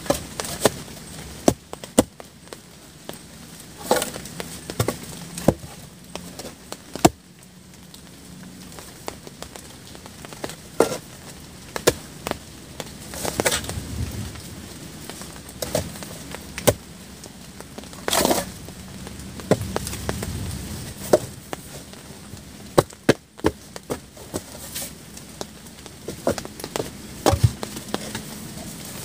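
Irregular sharp knocks and cracks, about one every second or two, over a steady low background noise.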